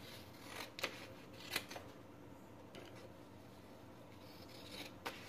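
Scissors snipping through sublimation transfer paper: a few faint, separate cuts spread over several seconds, with light paper handling.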